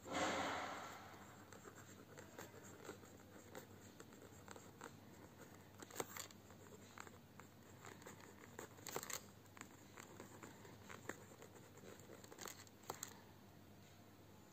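Pen writing on lined notebook paper: faint scratching strokes with a few sharper ticks scattered through, after a short rustle right at the start.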